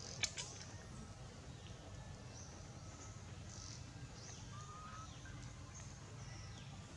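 Faint outdoor ambience: a low steady rumble with scattered faint high chirps and a short whistle-like call about halfway through. A single sharp click sounds just after the start.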